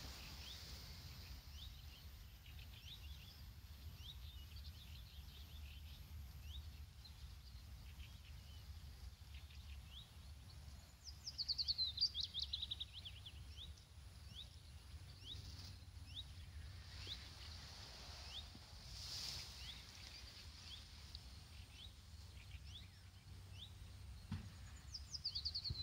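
Songbirds singing: scattered short high chirps throughout, and twice, about eleven seconds in and again near the end, a louder song of rapid notes falling in pitch. A low steady rumble of outdoor background noise lies underneath.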